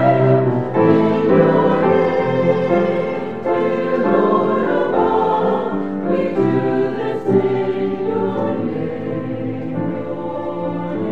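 A choir singing sacred music in sustained chords that change every second or so, growing gradually softer.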